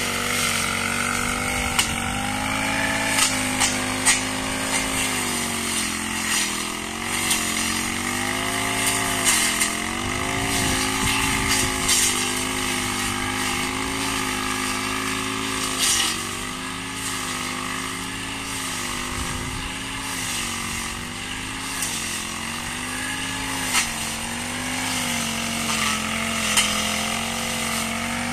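Backpack four-stroke brush cutter running at high speed, its engine pitch dipping briefly again and again as the blade bites into thick grass, with scattered sharp clicks.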